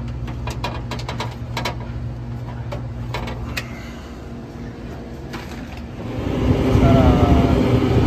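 Refrigeration unit running with a steady low hum, with small clicks and taps of plastic fan housings and wiring being handled in the first few seconds. About six seconds in, a louder rush of air from a running wire-guarded fan rises over the hum.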